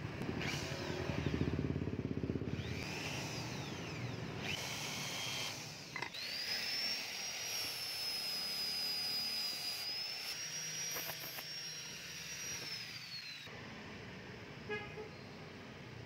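Electric drill running against a stainless-steel knife handle. Then an angle grinder spins up about six seconds in, holds a high steady whine while working the handle's edge, and winds down with a falling whine a few seconds before the end.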